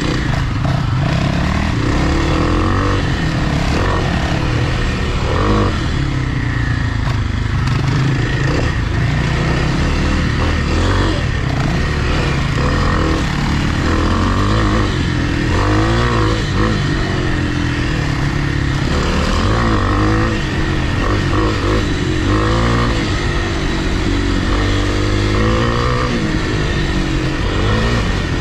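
Dirt bike's single-cylinder engine under way on a trail, its pitch rising and falling over and over with throttle and gear changes.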